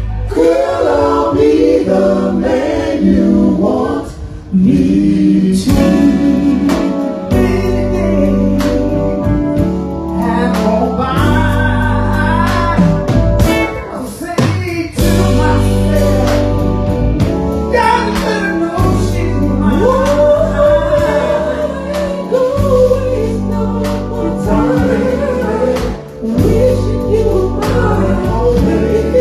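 A band playing a gospel-style song, with singing over a strong bass line.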